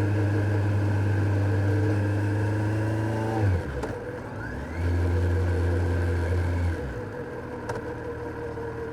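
Kawasaki Z900's inline four-cylinder engine pulling under throttle, its note rising slightly. About three and a half seconds in it drops away as the throttle closes, pulls again for about two seconds, then falls back to a lower, quieter note near the end.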